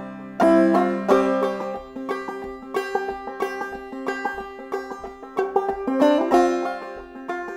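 Banjo played clawhammer style: an old-time tune in a steady rhythm of bright plucked notes and brushed strums.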